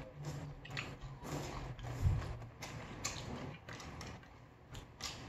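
Eating at a table: irregular small clicks and scrapes of spoons on dishes, with chewing, and one duller knock about two seconds in.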